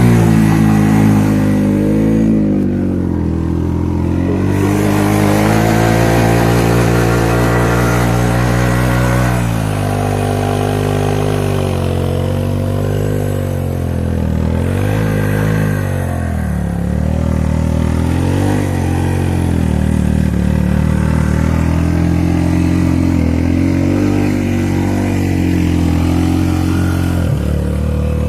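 Suzuki King Quad ATV engine running under load in first gear, low range, four-wheel drive, its revs rising and falling again and again as it pushes through deep snow.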